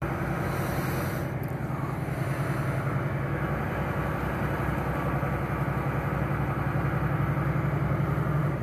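Semi truck's diesel engine running with a steady low drone, heard from inside the cab as the truck rolls slowly, a little louder toward the end.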